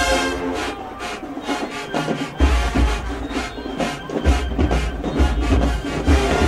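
HBCU marching band playing: massed brass with drums, a deep low bass coming in about two and a half seconds in and again a little past four seconds.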